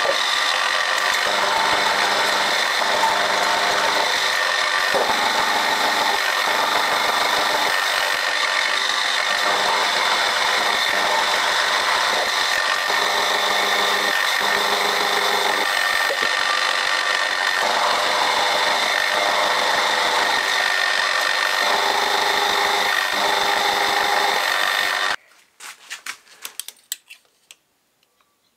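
Milling machine spindle running with an end mill cutting two small steel crank web plates held in a vise: a steady cutting sound with a faint high whine. It stops abruptly near the end, and a few light clicks follow.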